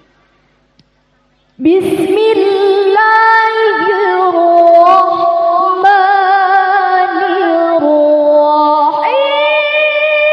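A female Qur'an reciter (qari'ah) chants tilawah into a microphone. After a short silence she begins about a second and a half in, holding long ornamented notes with vibrato, and climbs to a higher held note about nine seconds in.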